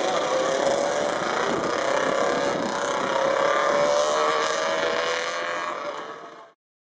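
ATV engine running with a steady tone that climbs slowly in pitch, then fades out near the end.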